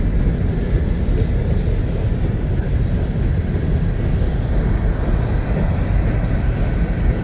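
CSX empty coke train accelerating as it rolls by: a steady low rumble of wheels and running gear.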